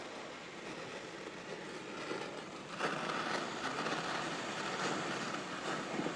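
Gas torch flame hissing steadily as it melts small scraps of gold on a soldering block, growing louder about three seconds in.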